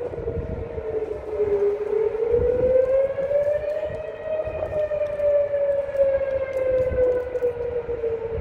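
Outdoor tornado warning siren sounding a steady wail, its pitch slowly sagging, rising to a peak midway and falling again. It is the area's alert that a tornado warning is in effect.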